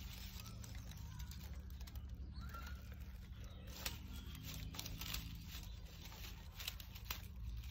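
Dry fallen leaves rustling and crackling faintly as a hand rummages through them, with a few sharper crackles near the end, over a low steady rumble.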